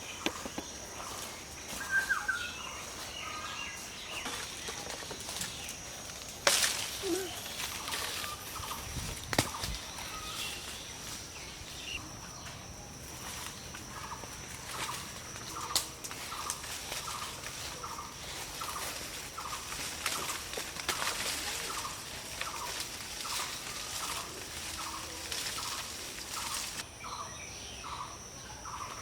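Outdoor ambience: a bird calls a short note over and over, a little under twice a second, above a steady high-pitched whine. A few sharp knocks stand out, the loudest about six and a half seconds in.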